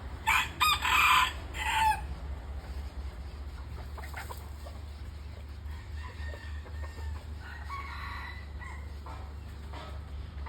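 Red junglefowl rooster crowing once, loud and clear, in a short crow of about two seconds that drops in pitch at the end. Fainter calls follow a few seconds later, over a steady low hum.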